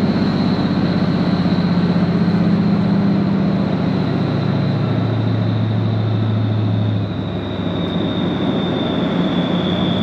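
Snowmobile engine running steadily under throttle, with a high thin whine over it that sags slightly in pitch. The engine note drops a step about four seconds in and eases off again at about seven seconds.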